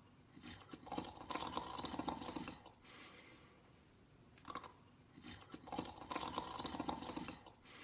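Snoring during sleep: a rattling snore lasting about two seconds, then a softer breath and a pause, heard twice in a slow, even rhythm.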